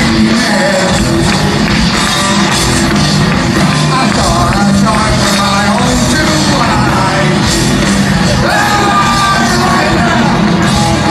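Live rock band playing loud in an arena hall, a singer's voice over guitars and drums, continuous throughout.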